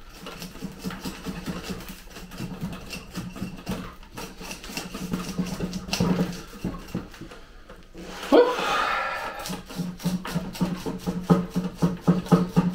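Hands and a tool scraping and picking at a potted Lawson cypress's dense root ball, which is nothing but roots with no soil left, making a run of irregular scratchy rustles and clicks. A short rising voice-like sound comes about eight seconds in.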